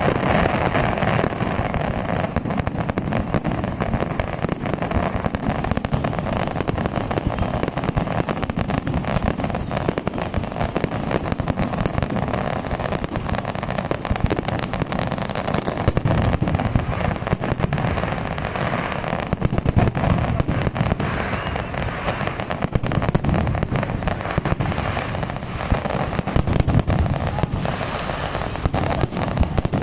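Fireworks display: a continuous barrage of bangs, booms and crackling bursts, many overlapping.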